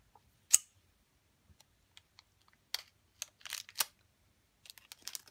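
Scattered small clicks and taps of hands handling hard plastic pen packaging. The loudest is one sharp click about half a second in, with a short run of quicker clicks in the middle and more near the end.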